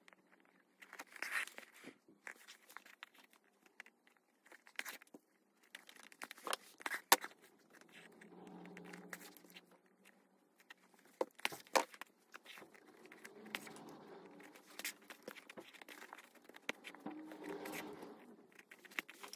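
Hand-stitching a leather seam: thread drawn through the stitch holes with short rasping pulls, the leather and fleece rustling as they are handled, and a few sharp clicks, the loudest about seven and twelve seconds in.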